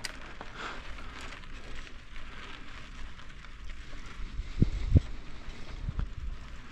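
Bicycle rolling over a sandy gravel road: a steady crackly hiss of tyres and wind on the action-camera microphone, with a few short low thumps between about four and a half and six seconds in.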